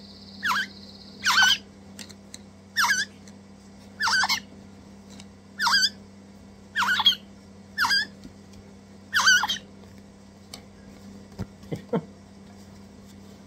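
Crimson rosella chicks giving short, wavering begging calls while being handfed, about eight calls roughly a second apart. The calls stop near the end, leaving a few light clicks.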